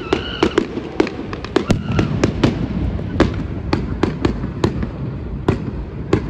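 A fireworks display bursting in the distance: a rapid, irregular run of sharp bangs, about fifteen in six seconds, over a steady low rumble.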